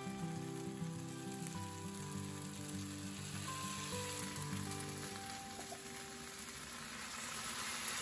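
Quince jelly cooking in a hot pot, a steady sizzling and bubbling. Light acoustic guitar music plays over it and fades out about five seconds in.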